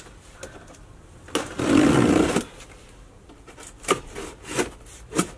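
Cardboard box being opened and handled: one long scraping rub of cardboard about a second and a half in, then a few light knocks.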